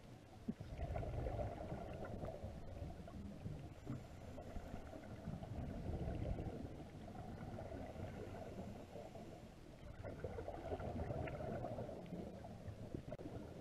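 Scuba regulator breathing and exhaled bubbles heard underwater, a muffled rumbling gurgle that swells and fades in surges every few seconds.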